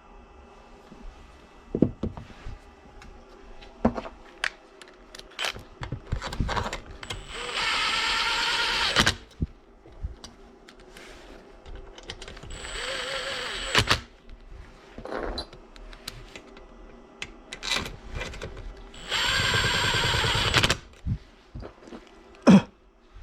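A small power tool, of the drill or driver kind, runs in three short bursts of one to two seconds each. Sharp knocks and clinks of tools and parts being handled come in between.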